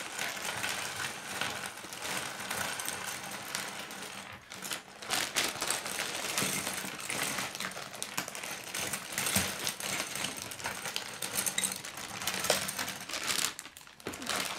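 K'nex plastic rods, connectors and wheels clattering onto a wooden table as they are poured and shaken out of a plastic bag, a dense, irregular rattle of many small clicks, with the bag rustling.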